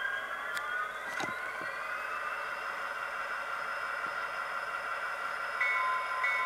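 Diesel prime-mover sound from the Tsunami EMD 710 sound decoder in a Kato SD90MAC model locomotive, heard through the model's small speaker. About a second in, the engine notches up, rising in pitch, then holds steady. Near the end a repeating ringing tone starts, the locomotive's bell.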